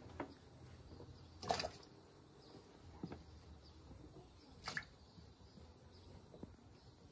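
Chunks of raw potato dropped into a steel pot of water, making a few separate plops. The loudest comes about a second and a half in and another just under five seconds in, all faint.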